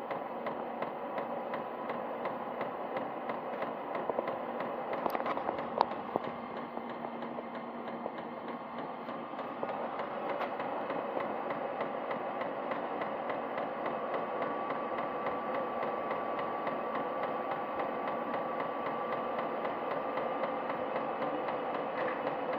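Diesel heater running through a start-up attempt that fails: a steady whir, with a couple of sharp clicks about five to six seconds in and a faint steady whine from about the middle to near the end.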